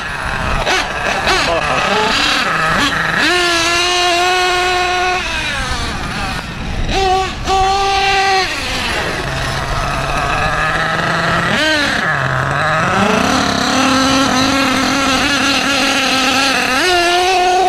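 Losi 8ight truggy's Force 32 nitro engine revving hard and easing off again and again as the truggy is driven, the pitch climbing, holding high, then dropping. It is running rich and loud.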